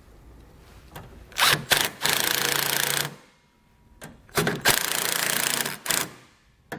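Milwaukee cordless drill driving screws into a plastic bracket: two runs of about one and a half to two seconds each, with a short pause between them, and a few clicks and knocks before each run as the screws are set.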